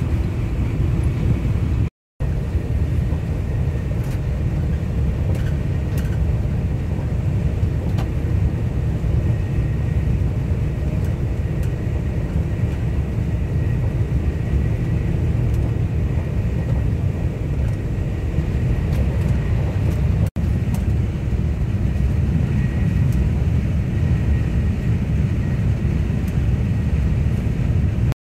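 Steady low rumble and rush of a TGV POS high-speed train cruising at about 316–318 km/h, heard inside the passenger car, with a faint high whine over it. The sound drops out for an instant twice, where the recording is cut.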